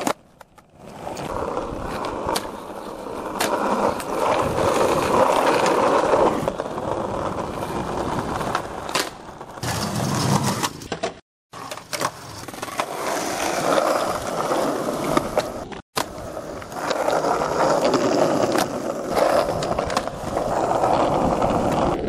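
Skateboard wheels rolling on pavement with a steady grinding roar, broken by sharp clicks and slaps from the board. The sound cuts out abruptly twice, where separate skate clips are spliced together.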